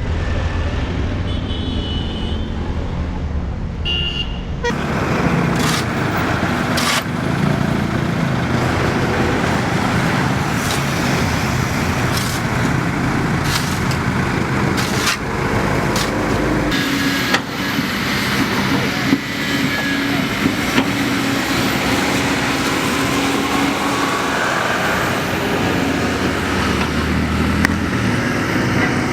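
Road traffic and vehicle noise: a steady rumble of engines and tyres on the road, with a few short sharp clicks.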